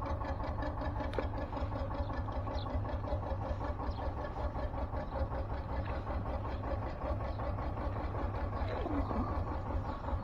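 An engine idling steadily, with an even, rapid low throb.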